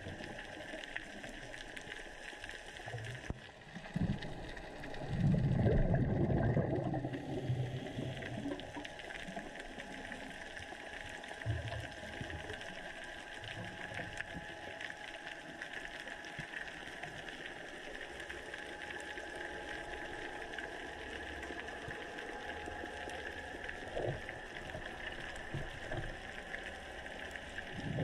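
Underwater sound picked up through a dive camera's housing: a steady hiss with a louder rumble of a scuba diver's exhaled bubbles about five seconds in, and a few weaker ones later.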